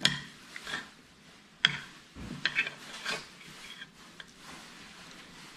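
Metal spoon and fork clinking and scraping against a plate while scooping up scrambled eggs, with a few sharp clinks in the first three seconds or so.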